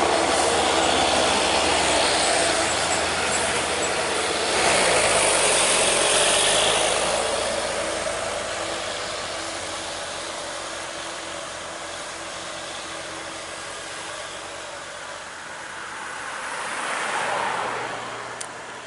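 Heavy diesel trucks' engines labouring up a steep grade, loud as they pass close and climbing away, fading after about seven seconds, with a brief swell of traffic noise near the end.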